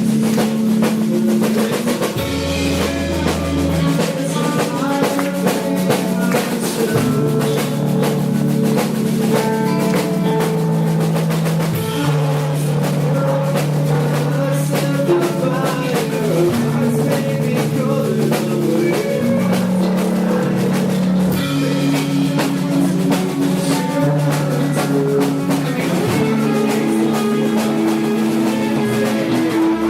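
Rock band playing: a drum kit keeps up steady hits over held bass notes and guitar, with no singing.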